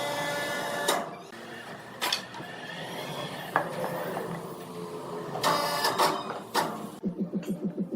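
Sawmill machinery running with a steady whine in the first second, then several sharp knocks and clattering. Near the end a rapid, regular pulsing starts, about seven beats a second.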